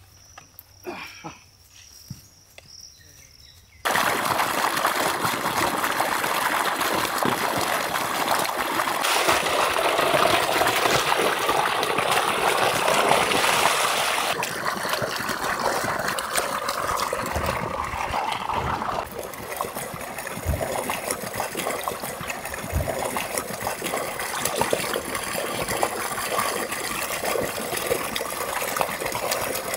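Water sloshing and splashing in a large aluminium pot as fish steaks are washed by hand. The water noise starts suddenly about four seconds in and continues, after a quieter start with a few faint knocks.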